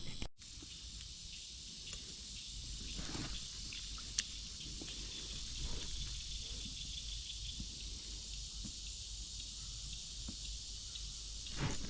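Steady high-pitched drone of an insect chorus, with one sharp click about four seconds in.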